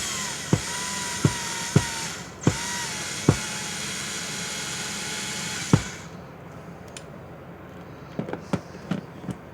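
DeWalt DW990 14.4 V XRP cordless drill/driver running steadily, with several sharp knocks, then stopping about six seconds in. A few light taps follow near the end.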